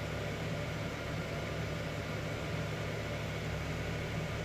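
Jeep YJ's 4.2-liter carbureted inline-six idling steadily, heard from inside the cab. It runs smoothly, with no miss or stumble now that its ignition wiring has been upgraded.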